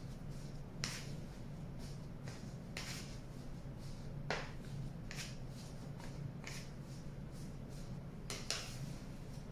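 Sticky cold porcelain clay of rice flour and white glue being kneaded by hand on a stainless steel table while extra flour is worked in: irregular soft squelches and slaps of the dough pulling off the metal, with a few sharper smacks about a second in, midway and near the end. A faint steady hum lies underneath.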